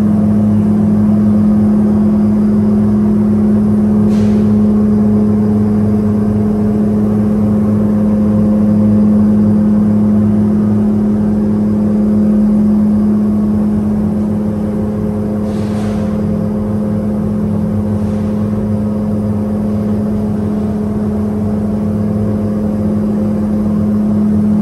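Steady machine hum: a constant drone with one strong low tone and fainter tones above it, unchanging throughout.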